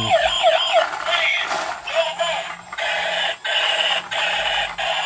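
Battery-powered transforming toy fire truck's electronic sound chip: a fast, wailing siren that stops about a second in, followed by a buzzy electronic tune that breaks off briefly a few times.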